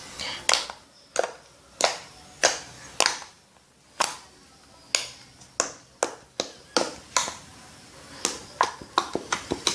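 Homemade slime being squeezed and stretched by hand, giving off a string of sharp pops and clicks, about two a second and coming quicker near the end.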